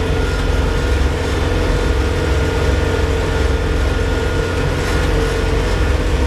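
The 55 hp diesel engine of an LS XU5055C tractor running steadily while the tractor drives at road speed, heard from inside the cab: a deep, even drone with a steady tone above it.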